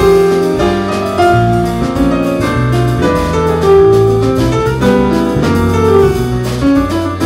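Jazz piano trio playing live: piano carrying the melody over bass and drum kit.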